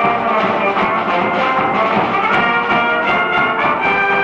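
Cheering-squad brass band playing a university fight song: trumpets, trombones, saxophones and sousaphone in full, loud ensemble over a steady beat.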